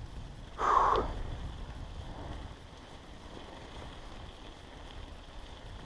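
Wind rumbling on an action camera's microphone, with a short rush of noise about a second in.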